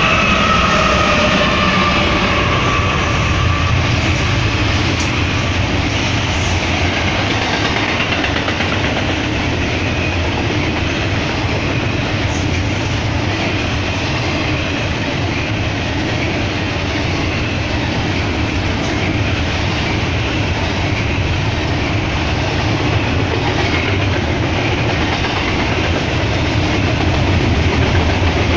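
Double-stack intermodal freight train rolling past: a steady, loud rumble and clatter of wheels on rail as the container cars go by. A set of falling tones fades out in the first few seconds.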